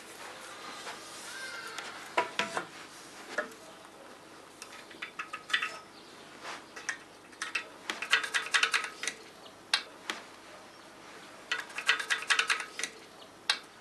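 Aluminium gate track clinking and rattling against a wooden door frame as it is lifted and held in place: a knock about two seconds in, then several short bursts of rapid light metallic clicks.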